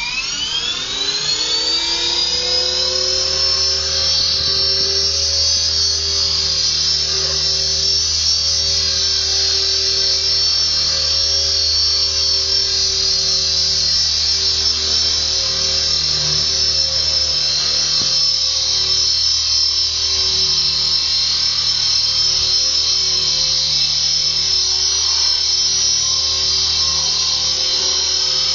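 E-sky Belt CP electric RC helicopter spooling up, its motor and gear whine rising fast over the first couple of seconds, then hovering with a steady high-pitched whine and a lower rotor hum. It is running on a newly replaced main gear and main shaft.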